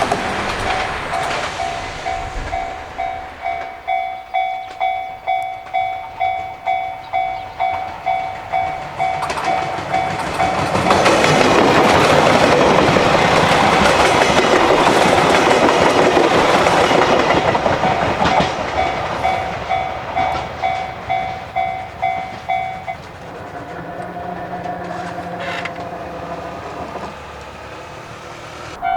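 Japanese level-crossing warning bell ringing a steady electronic ding-ding, about two strikes a second. About ten seconds in, a diesel train runs over the crossing, and its rumble and wheel clatter drown the bell for several seconds. The bell stops about 23 seconds in, leaving a fainter steady hum.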